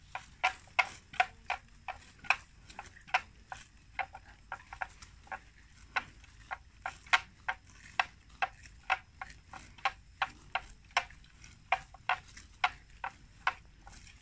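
Water buffalo grazing close by, tearing off mouthfuls of grass: a steady run of sharp, crisp snaps, about two or three a second.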